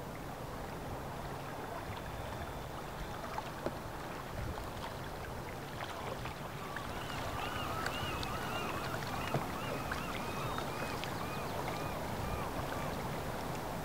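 Steady open-water ambience, a soft even wash of water and air. From about seven seconds in, a quick run of repeated high chirping calls, about two a second, fades out near the end.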